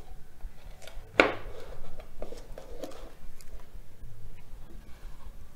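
Handling sounds of a smartphone over a wooden tabletop: one sharp click about a second in, then a few lighter taps and clicks as a finger works the touchscreen.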